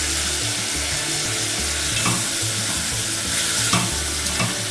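Onions and garlic sizzling in a pot where meat was seared, stirred with a silicone spatula that scrapes the bottom now and then, lifting the browned bits; the onions are starting to caramelize.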